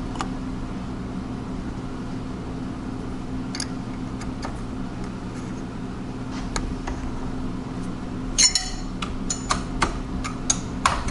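Light metallic clicks and clinks as a small two-flute end mill is handled and fitted into the milling machine's tool holder, with a quick cluster of clinks about eight and a half seconds in. A steady low hum runs underneath.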